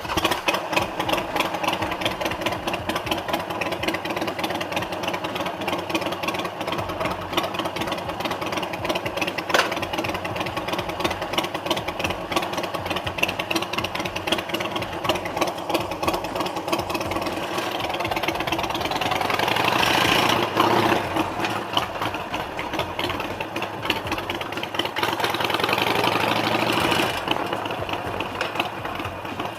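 Harley-Davidson Sportster 883's V-twin engine running with a fast, lumpy pulse, growing louder twice, about two-thirds of the way in and again near the end.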